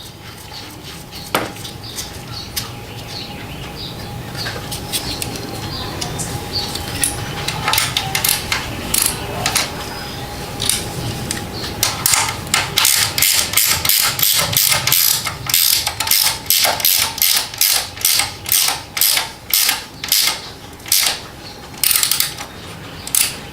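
Ratchet wrench being worked back and forth, its pawl clicking in quick repeated strokes that grow dense from about halfway through, after quieter handling noises.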